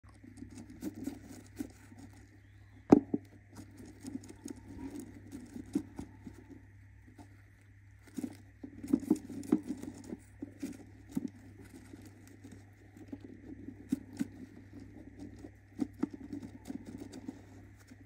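Budgerigar hen shuffling and pecking about a wooden nest box with shredded paper bedding: irregular scratchy rustles and clicks of beak and feet on the floor, with one sharp tap about three seconds in, over a faint steady hum.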